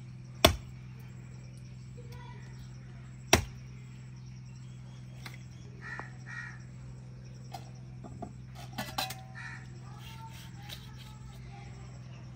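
Two heavy cleaver blows chopping cow trotters into pieces through the bone, about three seconds apart, followed by lighter knocks and handling clicks, over a steady low hum.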